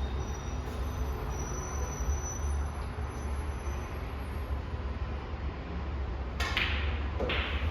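Steady low hum of the room, then two short clacks of snooker balls about a second apart near the end.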